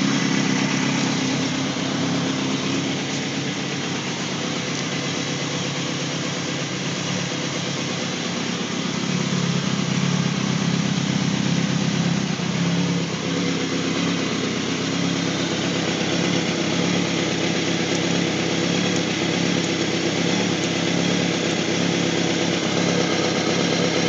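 2005 Kawasaki ZX-6R 636's inline-four engine idling steadily, a little louder from about nine seconds in.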